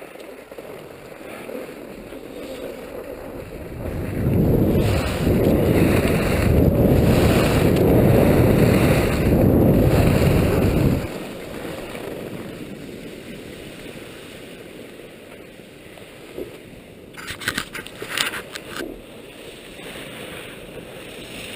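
Wind rushing over the microphone of a skier's camera during a downhill run on skis. It is loudest from about four to eleven seconds in, then eases to a steady hiss, with a few sharp clicks and rattles near the end.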